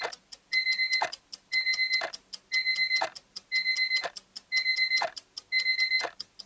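Timer alarm going off: a burst of rapid high beeps about once a second, each burst lasting about half a second.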